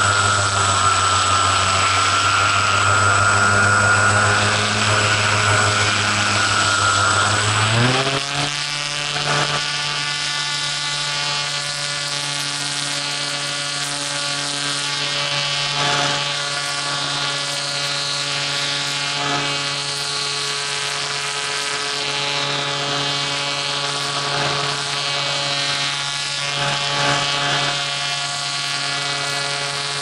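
Model T-28 airplane's motor and propeller running steadily in flight, a pitched hum with a whine above it; about eight seconds in the pitch steps up as the throttle is advanced and then holds steady.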